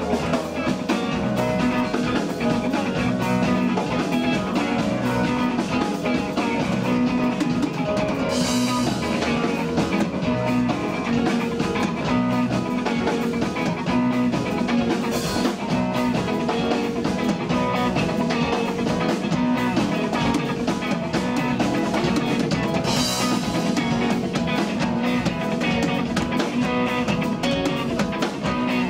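Live rock band playing an instrumental passage without vocals: electric guitar and bass guitar over a Sonor drum kit, with three loud cymbal crashes several seconds apart.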